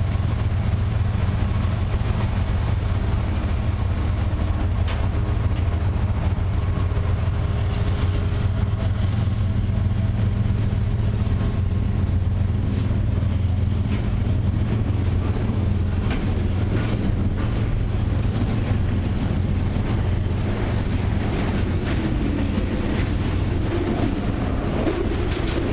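Freight train rolling past, a steady low rumble with wheel clicks over the rail joints that come more often toward the end.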